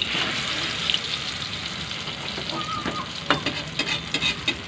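An eggplant omelette (tortang talong) frying in hot oil in a wok, a steady sizzle that is loudest as it is turned over at the start. From about three seconds in, a metal spatula clicks and scrapes against the wok several times.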